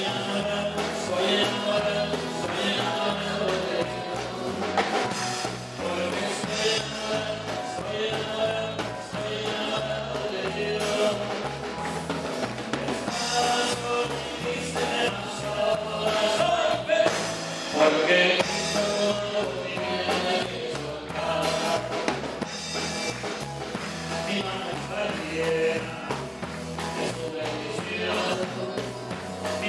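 Praise band of a Catholic prayer group playing a Spanish-language worship song: voices singing over a steady drum-kit beat.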